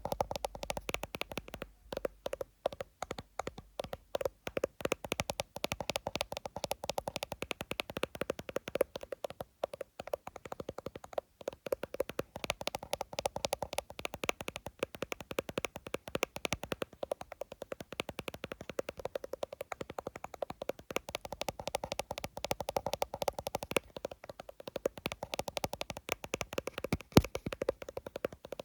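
Fast tapping on an iPhone, many quick taps a second in a dense, continuous run.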